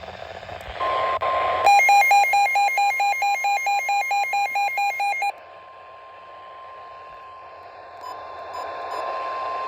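NOAA Weather Radio warning alarm tone, the steady 1050 Hz tone that comes before a warning message, sounding from weather radios. For the first few seconds a radio's own alert beeps rapidly on top of it, about four beeps a second, and a few short beeps come again near the end.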